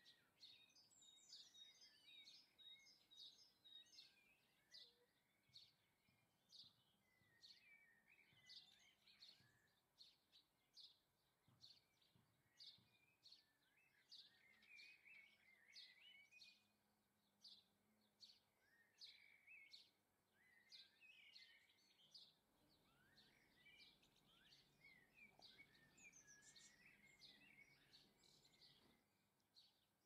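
Small garden songbirds calling, faint: a steady run of short high chirps with twittering phrases among them.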